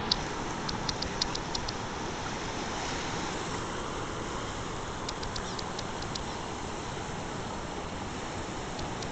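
Swollen, fast-flowing floodwater of a river rushing steadily, with a few faint high ticks about a second in and again around five seconds in.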